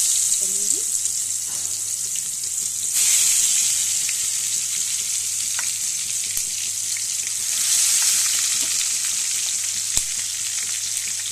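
Whole masala-stuffed brinjals sizzling in hot mustard oil in a steel kadhai, a dense, steady hiss. The sizzle swells afresh twice, about three and seven and a half seconds in, as more brinjals go into the oil. There is one sharp tap near the end.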